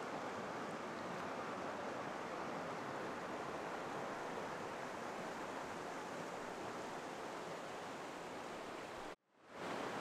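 Steady rushing of a clear mountain creek flowing over rocks and small rapids. It cuts out suddenly about nine seconds in and fades back up within half a second.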